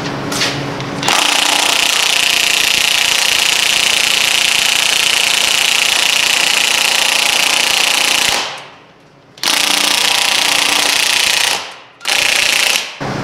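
DeWalt cordless impact wrench hammering on a rear wheel's lug nuts, trying to break them loose. It runs about seven seconds, stops for a second, runs again for two seconds, then gives one short last burst.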